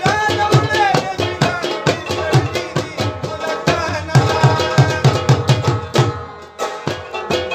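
Pashto folk music: a clay-pot drum (mangay) beaten by hand in a quick, steady rhythm, under a plucked rabab and a man's voice singing tapay. The music thins out for a moment about six seconds in.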